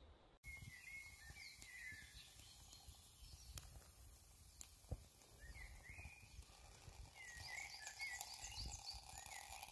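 Faint woodland ambience: small birds chirping in short repeated calls, busier and higher near the end, over a low rumble, with a few light clicks.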